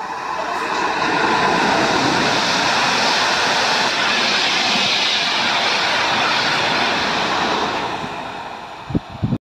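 PKP Intercity ED160 Stadler FLIRT electric multiple unit passing close by at speed: a loud rush of wheel and air noise that builds over the first second, holds, and fades near the end. Two or three short low thumps come just before the sound cuts off.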